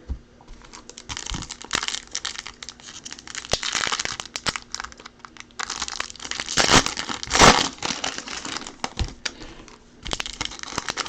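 Foil trading-card pack wrappers crinkling and tearing as packs are handled and ripped open, in irregular crackly bursts that are loudest about two-thirds of the way through.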